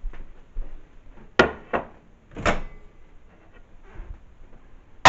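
Several sharp knocks and clunks of kitchen handling, the loudest about a second and a half and two and a half seconds in: a bowl going into a microwave and its door being shut.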